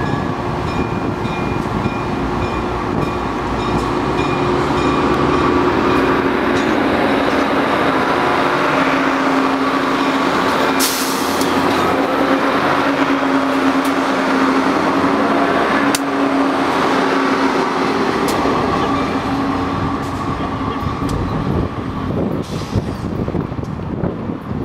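Budd Rail Diesel Cars pulling out of a station and passing close by, their underfloor diesel engines running with a steady note over the rumble of wheels on rail. Two sharp clicks come about 11 and 16 seconds in, and the sound fades near the end as the train moves off.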